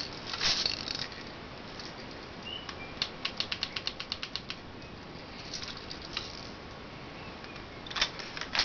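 Clear plastic airsoft rifle being handled: rustling, then about three seconds in a quick even run of about a dozen ratchet-like plastic clicks, and a few louder clicks near the end.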